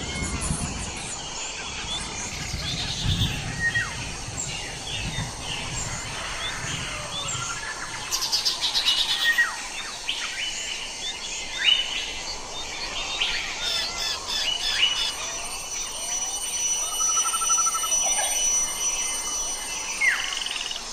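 Several birds chirping and singing at once, overlapping short chirps, whistled notes and quick trills.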